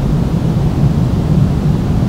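Steady pink noise, a deep even rush with most of its weight in the low end and no changes or breaks.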